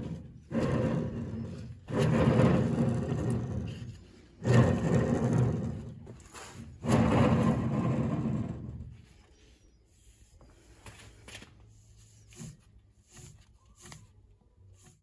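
Worn drum bearings of a PZ CM 185 drum mower grinding as the drum is spun by hand around its shaft clamped in a vise. A rough, grating rumble surges four times over the first nine seconds, each spin fading away. After that come only faint ticks as the skid disc shaft bearing, which still seems fine, is turned by hand.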